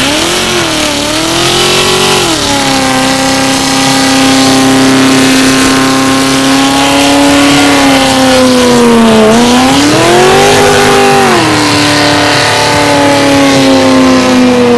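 Dodge Charger police car's engine revving hard and held at high revs during a burnout, its rear tyres spinning on the asphalt. The revs dip and climb again a few times, settling lower about two seconds in and again near the end.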